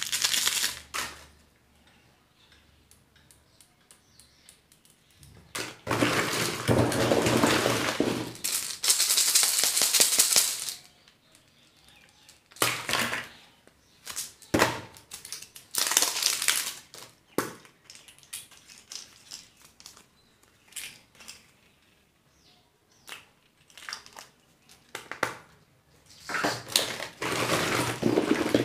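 Surprise-egg and candy wrappers crinkling and tearing in several bursts, the longest about six seconds in and again near the end, with scattered clicks and taps between.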